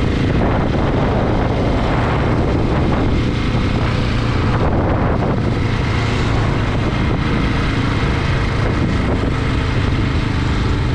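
KTM 690's single-cylinder engine running steadily as the motorcycle cruises, with wind noise on the microphone.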